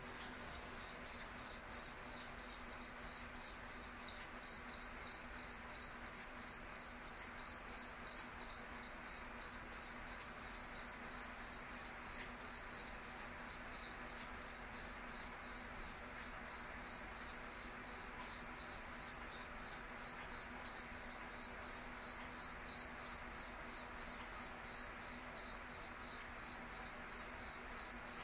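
Cricket chirping steadily: high-pitched chirps repeated evenly, about three a second.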